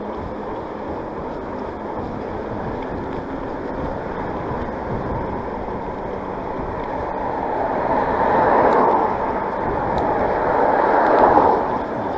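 Mountain bike tyres rolling and splashing through standing water and mud on a waterlogged trail: a steady rushing noise that swells twice in the second half.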